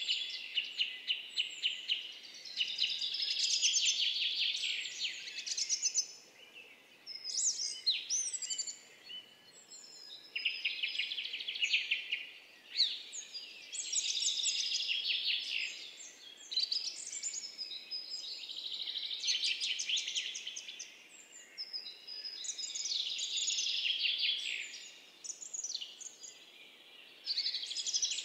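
Many small birds chirping and chattering together, in busy bursts of a few seconds with short lulls between, over a faint outdoor hiss.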